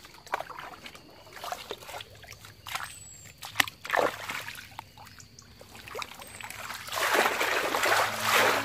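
Shallow water splashing and sloshing as someone wades and moves a basket through it, in scattered small splashes, then a longer, louder burst of splashing near the end.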